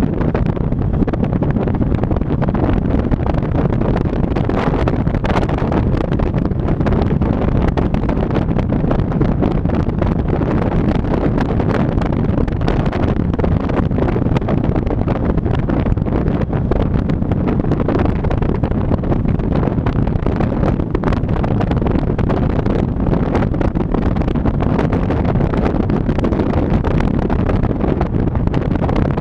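Wind buffeting the microphone of a camera mounted on the outside of a moving car: a steady, loud rushing and fluttering, with the car's road noise underneath.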